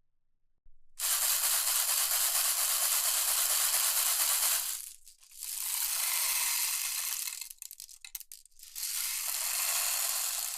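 A hand rattle shaken in three long, continuous spells, each a dense hiss of many small grains or beads striking together, with a few short clicks between the second and third spells.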